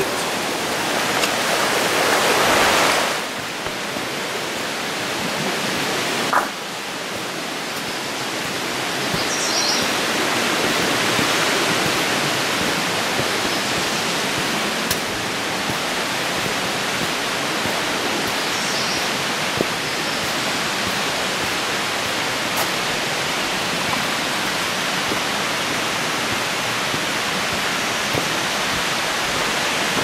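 Steady rushing of a mountain creek, louder for the first three seconds or so, then a little lower but continuous. A couple of faint, brief high chirps sound over it.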